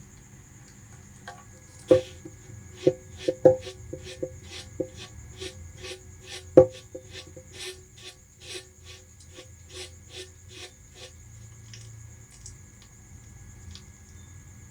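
Bamboo rat biting and chewing sugarcane: a few loud cracking bites about two seconds in and once more near the middle, then softer crunching chews about two a second.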